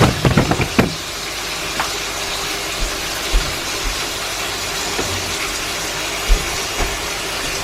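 A steady rushing hiss, with a few light clicks in the first second and two soft knocks later on.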